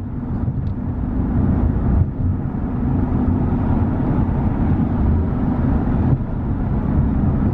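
Motor vehicle on the move: a steady low rumble of engine and road noise.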